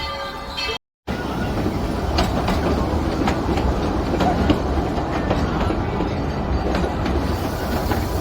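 Narrow-gauge train rolling on its rails, a steady rumble with scattered clicks of the wheels over the rail joints. It opens with a high steady squeal that breaks off in a short gap of silence just before a second in.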